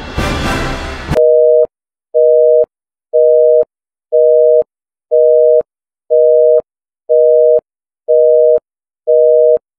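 Theme music cuts off about a second in. Then a telephone busy signal: a two-tone beep sounding half a second on and half a second off, once a second, nine times, of the North American kind (480 and 620 Hz) that means the line is engaged.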